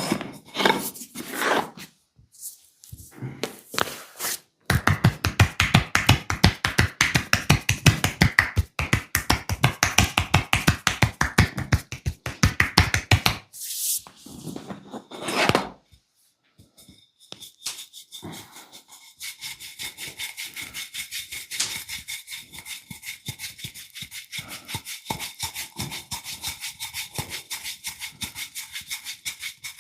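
Hands striking the body in a fast percussive massage, about six slaps a second for several seconds. After this come a few rubbing strokes, then a longer run of lighter, quicker tapping.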